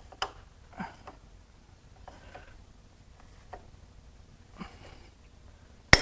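Gear puller slowly tightened on a diesel fuel injection pump's drive gear, with a few faint clicks and creaks. Near the end the gear breaks free of its shaft with one loud sharp crack and a short metallic ring.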